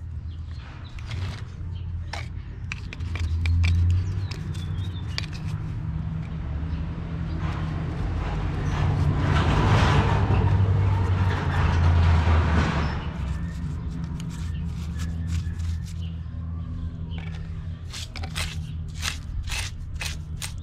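Paintbrush dabbing and scrubbing concrete bonding adhesive onto a rough concrete step, giving scattered light scrapes and taps. Under it runs a low steady rumble that swells into a louder hiss for a few seconds midway.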